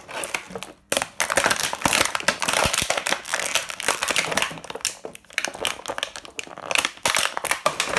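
Thin clear plastic blister tray crinkling and crackling as small toy figures are pressed and pushed around in it, dense and loud from about a second in.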